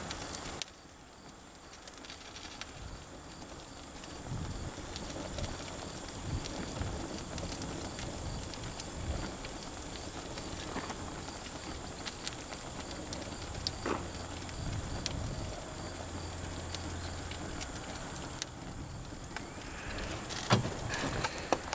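Flames from a can of homemade napalm burning on a car engine: a steady hiss broken by occasional crackles and pops, the loudest pops near the end.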